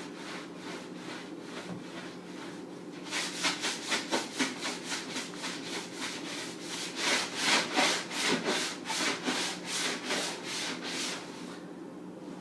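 Sponge scrubbing the inside of a refrigerator: quick back-and-forth rubbing strokes, about three a second, faint at first and much louder from about three seconds in until near the end.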